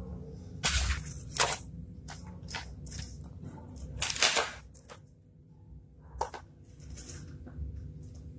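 Hands handling small objects on a tabletop, with short rustling, scraping bursts twice about a second in, a louder one about four seconds in, and a sharp click near six seconds.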